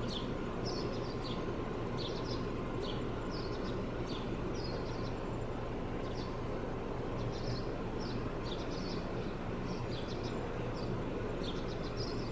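Small birds chirping over and over, short quick chirps that come in loose clusters throughout, over a steady low hum of background noise.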